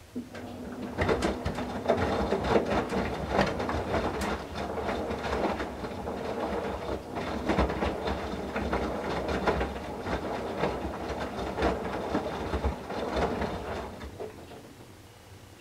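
Whirlpool Duet WFW97HEDC front-loader turning its drum through one main-wash tumble: the direct-drive motor hums steadily while wet towels and water slosh and thud as they drop. It starts about a second in and dies away near the end as the drum stops.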